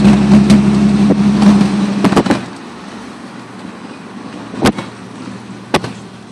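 Truck-mounted Hornblasters train horn blasting a steady low chord, cutting off about two seconds in. Two sharp clicks follow about a second apart.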